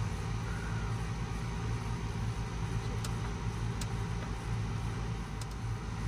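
Steady low machine hum, even and unchanging, with a few faint clicks.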